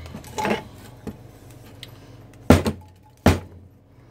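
Cut sections of a steel motorcycle exhaust pipe being handled and set down on a metal workbench: light clatter, then two loud knocks less than a second apart.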